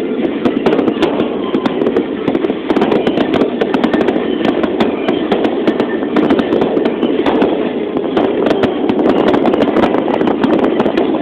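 Fireworks display: aerial shells bursting in a rapid, continuous barrage of bangs and crackles over a steady rumble.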